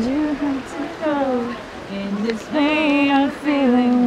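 A woman singing slowly, holding long notes with a slight vibrato, with short breaks between phrases.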